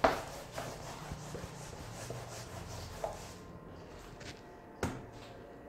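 A person moving about in a small, quiet room: a sharp knock at the start, then faint shuffling and two lighter knocks about three and five seconds in.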